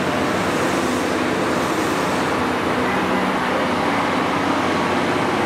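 JR Kyushu 885 series electric express train standing at the platform, its equipment running with a steady hum and whir and a faint low drone.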